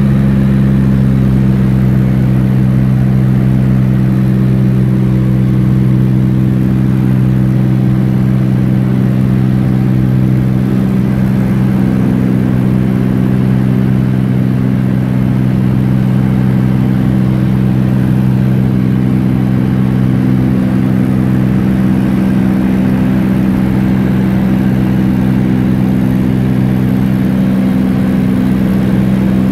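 Light aircraft's engine and propeller droning steadily, heard from inside the cabin.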